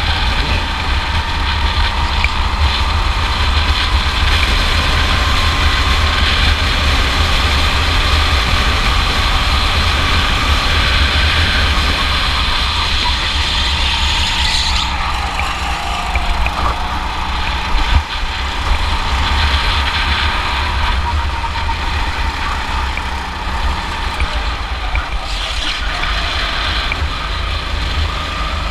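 Rental go-kart engine running hard, heard from the driver's seat with heavy wind rumble; the engine note drops off as the throttle is lifted about halfway through and again near the end, then picks back up. A single sharp knock about two-thirds through.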